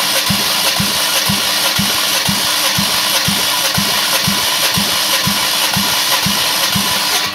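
Starter cranking a 3.2-litre Z32SE V6 during a compression test of one cylinder: a steady whir with a regular pulse about twice a second. The cranking stops near the end.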